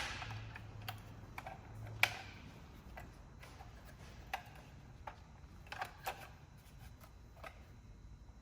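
Scattered light clicks and knocks from a Milwaukee M12 Fuel cordless bandsaw being handled, about a dozen at uneven spacing. The sharpest comes about two seconds in.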